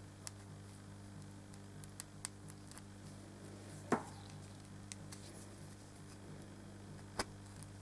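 Faint scratchy clicks and crackles of fingers working the fine wire braid of RG58 coax back over its jacket, with a sharper click about four seconds in and another near the end. A steady low hum runs underneath.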